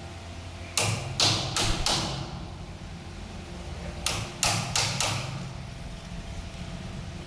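Hammer blows on wood: four quick strikes about a third of a second apart, then after a pause of about two seconds another four, over a low steady hum.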